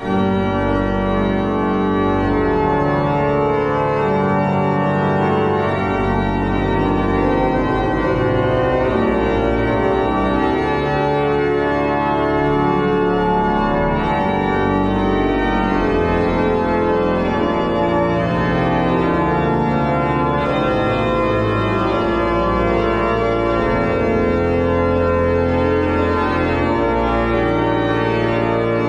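The 1809 Meere pipe organ, a two-manual mechanical slider-chest organ with pedal, playing loud, dense sustained chords over deep pedal bass. The music starts abruptly at the very beginning.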